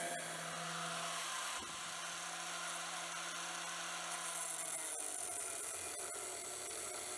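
Angle grinder with an abrasive disc running steadily, grinding the steel blade of a knife forged from a bolt.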